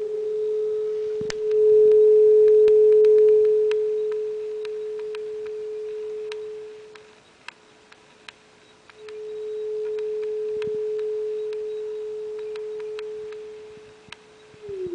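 A steady sine-wave test tone played through a Fisher K-10 Spacexpander tube spring reverb unit. Its level swells, then drops away almost to nothing for about two seconds in the middle and comes back. Near the end the pitch starts to slide down. Faint sharp ticks are scattered throughout.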